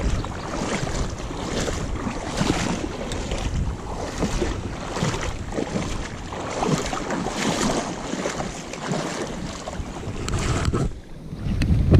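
Legs wading through shallow river water, a swish and slosh swelling about once a second with each stride, with wind rumbling on the microphone.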